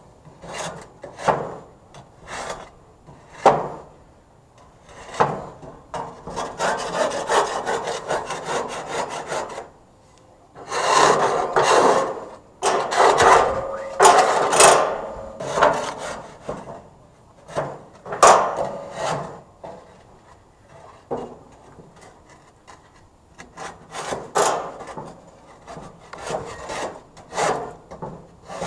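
Barbecue grill grates being scrubbed, a rasping scrape in runs of rapid back-and-forth strokes with pauses between.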